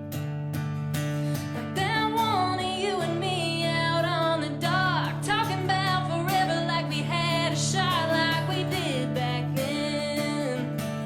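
Live acoustic music: acoustic guitar playing, with a wavering melody line coming in over it about two seconds in.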